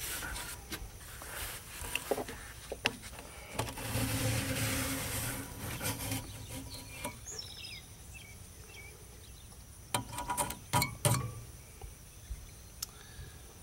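A fin comb scraped through the bent, clogged fins of an AC coil: a rasping stroke of about two seconds in the middle, with scattered clicks and knocks from the comb and tools on the unit before and after. A bird chirps once, briefly.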